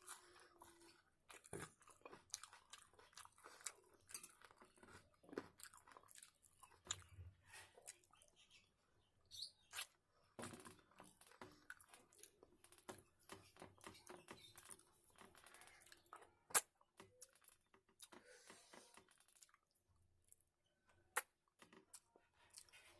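A person eating: quiet close-up chewing and crunching, a steady string of short wet mouth clicks and crunches, with a couple of sharper single clicks in the second half.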